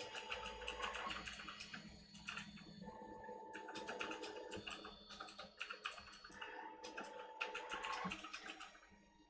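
Desktop FDM 3D printer printing: its stepper motors make rapid clicking with a few steady whining tones as the print head makes short, quick moves. The sound dips just before the end.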